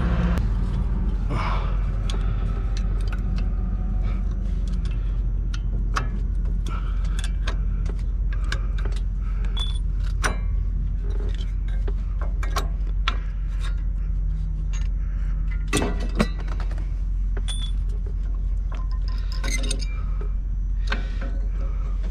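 Metal clinking and clacking as brake pads and caliper hardware are worked loose and slipped out of a truck's brake caliper: a scatter of sharp clicks, with a louder clack about sixteen seconds in. A steady low rumble runs underneath.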